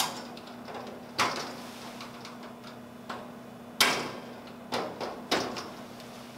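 About half a dozen sharp metallic clicks and knocks at irregular intervals: a flat-blade screwdriver prying hinge pins up out of the steel door hinges of a Rittal TS8 enclosure.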